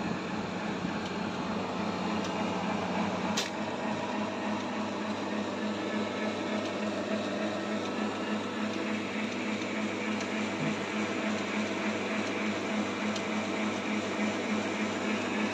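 KFC Krusher machine's motor and belt-driven beater running steadily with only a little noise, its worn drive belt freshly re-tensioned to cure the belt noise. A single sharp click about three seconds in.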